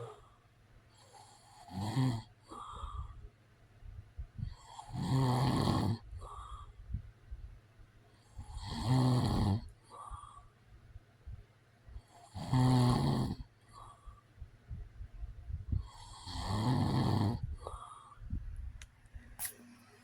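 A man snoring: four snores about four seconds apart, each about a second long, with quieter breaths between them.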